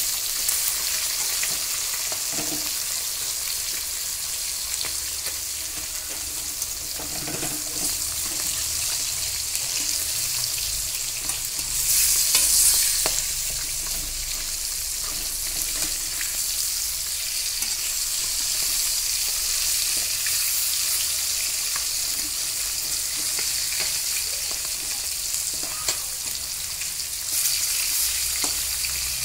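Fish pieces frying in hot oil in a steel kadai: a steady sizzle, with scrapes and taps of a metal spatula as the pieces are turned. The sizzle flares louder briefly about twelve seconds in and again near the end.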